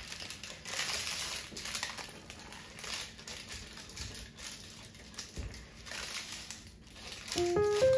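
Knife cutting through the crisp crust of a baked puff-pastry tart, a string of irregular dry crunches and crackles as the flaky layers break. Music comes in near the end.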